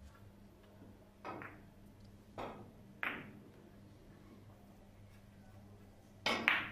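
Three-cushion billiards shot near the end: the cue strikes the cue ball and a moment later the ball clicks sharply off another ball. Three softer knocks come in the first few seconds.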